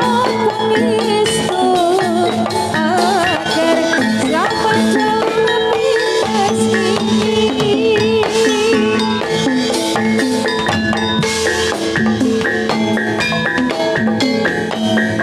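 Javanese gamelan music of the kind played for a Jathilan horse dance: struck metal keys ringing in steady patterns over drum strokes, with a wavering melodic line in the first few seconds.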